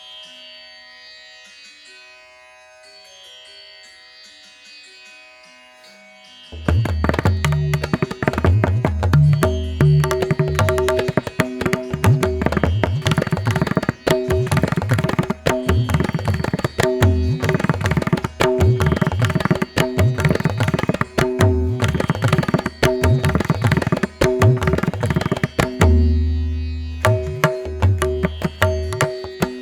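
Background music in an Indian classical style: soft sitar-like strings for the first few seconds, then tabla-like drums and bass come in loudly about six seconds in with a steady beat.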